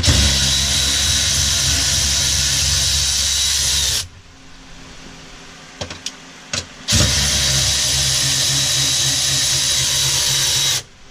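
Power drill running steadily for about four seconds, stopping, then running again for about four seconds near the end, backing out the bolts of a Tesla Model 3's battery penthouse lid.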